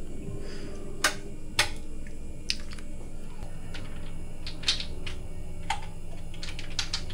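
Irregular light clicks and taps of small hard objects being handled at a sink, with a quick cluster of clicks near the end, over a faint steady hum.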